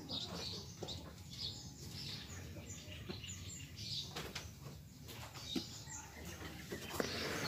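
Small birds chirping over and over, faint short high chirps, with a few light knocks mixed in.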